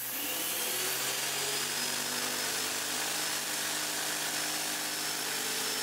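Graco Magnum X7 airless paint sprayer's electric pump running steadily, pushing water through the hose and spray gun into a bucket with a steady hiss. This is the sprayer being flushed with water to check for leaks before priming with paint.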